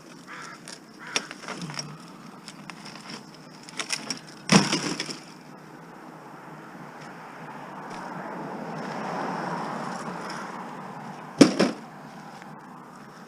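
Knocks and clatters of discarded junk being handled: a few small ones early, a loud one about four and a half seconds in and another near eleven and a half seconds. Between these a passing car swells and fades.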